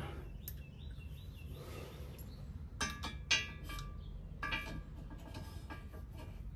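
Light metallic clinks and ticks of a steel socket and nuts being worked by hand onto the transmission mount, in short clusters about three seconds in and again around five seconds in.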